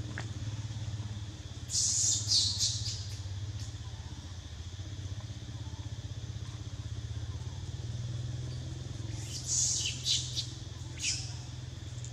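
A motor running steadily in the background, a low even hum like an idling motorcycle engine. Two short clusters of high, scratchy hiss come about two seconds in and again about ten seconds in.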